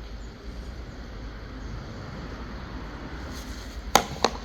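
Steady low background hum, with two sharp clicks about a quarter second apart near the end.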